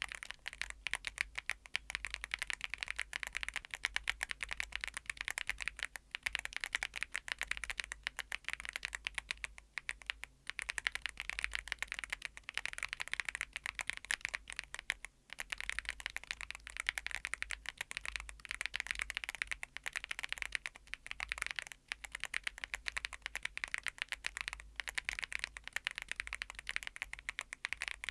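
Typing on a YUNZII AL98 full-aluminum 96-key mechanical keyboard with MILK V2 switches. The key clacks run fast and close together, with a few short pauses in between.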